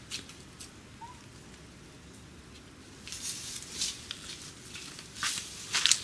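Irregular crackling and rustling clicks over a low steady background. They grow denser and louder about halfway through, with the sharpest clicks near the end.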